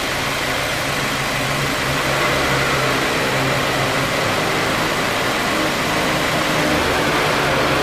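2018 Subaru WRX idling with the air conditioning running: a steady engine hum under a broad hiss of fan and airflow, rising slightly about two seconds in. The AC compressor, repaired for a noise at engagement caused by light wear, runs here without that noise.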